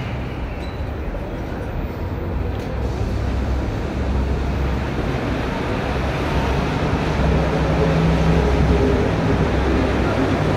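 Rubber-tyred metro train running alongside the platform: a low, steady rumble that grows louder from about four seconds in, with a faint motor whine near the end.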